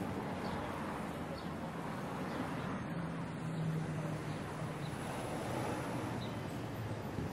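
Urban neighbourhood ambience: a steady hum of distant road traffic, with a low engine drone that comes up about three seconds in and fades two seconds later.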